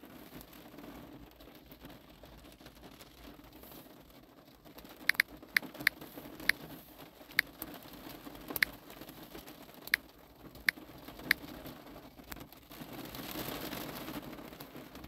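Sharp, irregular clicks, about ten over six seconds, from typing on a smartphone's on-screen keyboard, over a faint steady hum; a soft rushing noise swells near the end.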